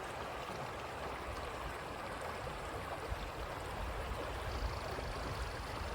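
Creek water flowing steadily over its bed, with an uneven low rumble underneath that grows stronger about halfway through.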